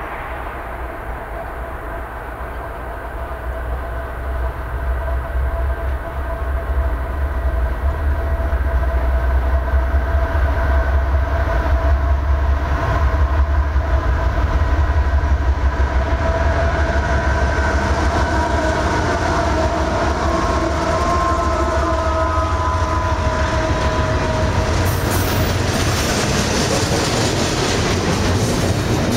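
CSX intermodal freight train approaching and passing. The lead diesel locomotives sound a multi-tone horn while their engine rumble grows steadily louder. Near the end the horn stops and the double-stack container cars roll by, wheels clicking over the rail joints.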